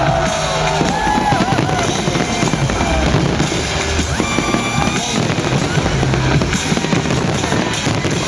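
Fireworks banging and crackling over loud music with drums and a steady bass.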